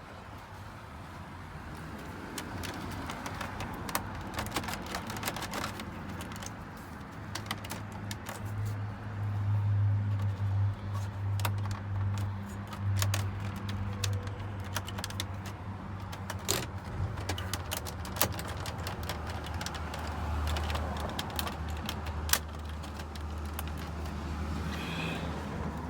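Scattered plastic clicks and small rattles of hands and tools working a truck's dashboard trim panel and switch, with a low steady rumble underneath.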